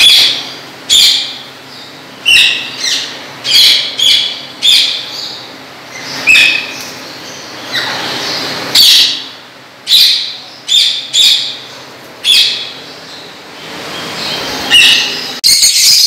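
Indian ringneck parakeets giving loud, sharp, high-pitched calls, repeated irregularly about once a second.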